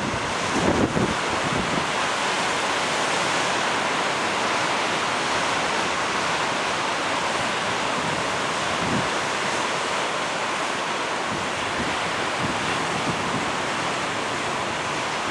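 Ocean surf on a beach: waves breaking and washing in as a steady, even rushing hiss, with no single crash standing out.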